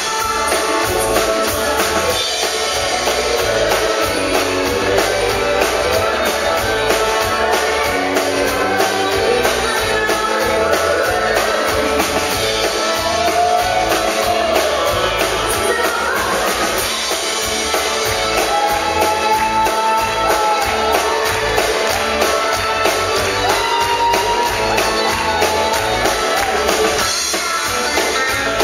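A live country band playing: a woman's lead vocal over electric bass, guitar and drum kit.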